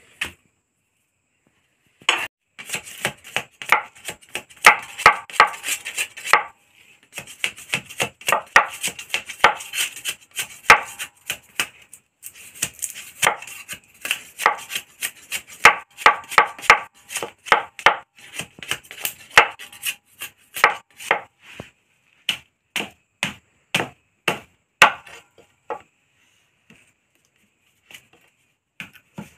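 A large knife chopping into and splitting open a cooked bamboo tube, which is how the bamboo is opened to get the food out. Quick sharp knocks, a few a second, come in runs with short breaks and space out after about twenty seconds.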